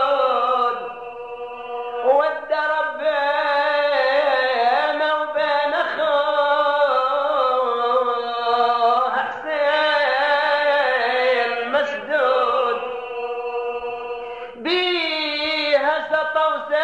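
A man's voice chanting a mourning elegy in long, drawn-out, wavering notes. The chant eases off briefly about a second in and again near the end before rising again.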